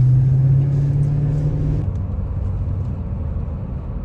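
Truck engine and road rumble, heard from inside the cab while towing a travel trailer. The engine note climbs slightly for nearly two seconds, then drops away, leaving the steady low rumble.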